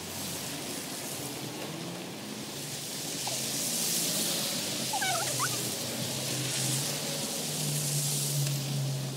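Winter city street noise: an even hiss of traffic and wind that grows louder through the middle, over a low steady hum. About five seconds in there are a couple of short chirps.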